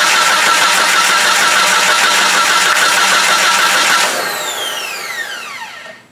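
Starter motor cranking the Jeep TJ's 4.0 straight-six steadily during a compression test on cylinder four. About four seconds in the cranking stops and the starter's whine falls away as it spins down.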